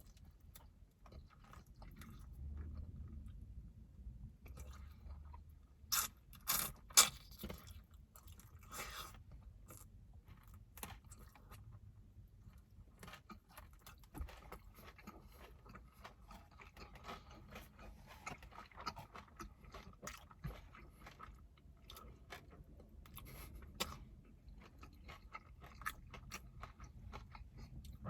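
Someone chewing and biting into sticky, sauce-coated fried chicken wings: crunching and wet mouth sounds, with a few sharp, loud clicks about six to seven seconds in.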